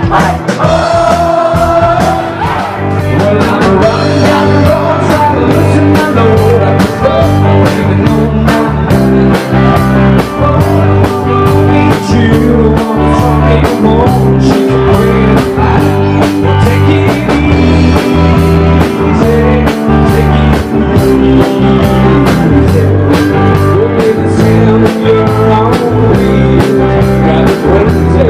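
Live rock band playing a song: electric guitar, bass and drum kit keeping a steady beat, with a male lead vocal.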